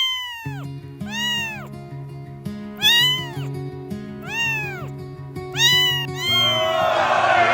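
Cat meowing over background music with a steady bass line: a long meow that rises and falls in pitch about every second and a half, and near the end many meows overlapping at once.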